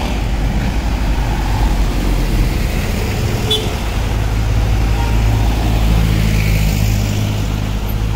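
Road traffic driving past: a light truck, cars, vans, a motorcycle and three-wheeler auto-rickshaws, engines running in a steady low rumble, with one deeper engine drone coming up about four seconds in and easing off near the end.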